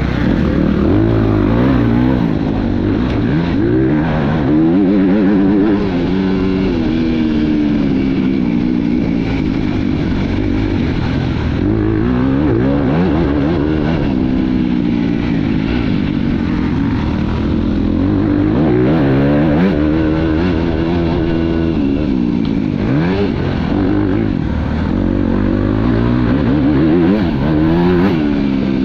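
Motocross bike engine at racing revs, its pitch rising and falling again and again as the rider accelerates and backs off round the dirt track.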